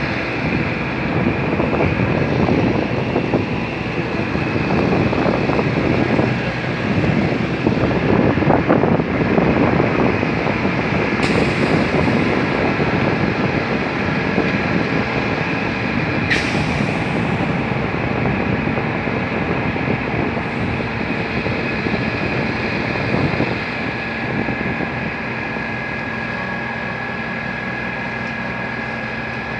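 Heavy diesel machinery running steadily during a concrete pour, with a steady high whine over the engine noise. There are two short sharp clicks, about 11 and 16 seconds in, and the noise eases slightly about 23 seconds in.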